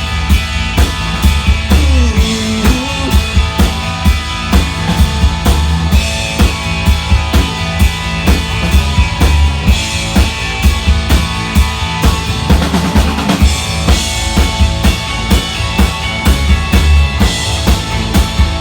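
Live band playing an instrumental passage with no vocals: a drum kit keeps a steady beat under bass and guitar, with sliding bent notes about two seconds in.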